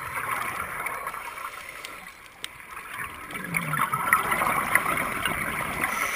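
Scuba regulator exhaust bubbles gurgling and crackling underwater, heard through a camera's waterproof housing: a diver breathing out, in two surges, the second starting a little past halfway.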